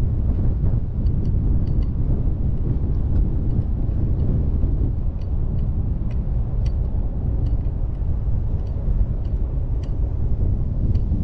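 A vehicle driving on a gravel road, heard from a microphone mounted outside it: a steady low rumble of tyres and wind on the microphone, with scattered light ticks.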